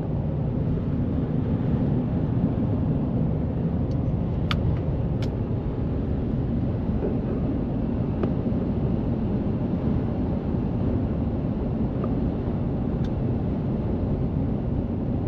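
Steady road noise of a car driving at highway speed: an even, low drone of tyres, engine and wind.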